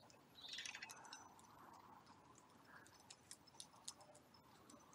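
Near silence, with faint scattered ticks and a brief soft rustle about half a second in.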